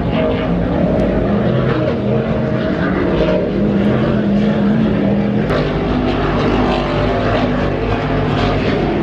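Racing powerboat engines running at speed, a loud, steady engine note with a slight shift in pitch about halfway through.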